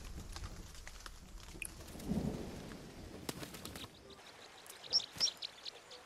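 Rain falling, with scattered drops ticking, a short low rumble about two seconds in, and two short high chirps near the end. The rain thins out a little before four seconds in.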